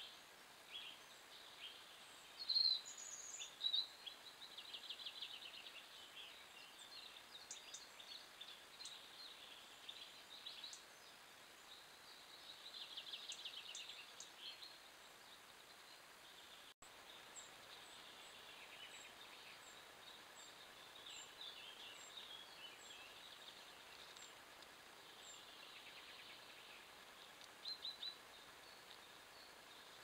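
Wild birds singing and calling faintly over a steady background hiss: scattered short chirps and trills, loudest about three seconds in, then a run of small, evenly spaced high notes after about halfway.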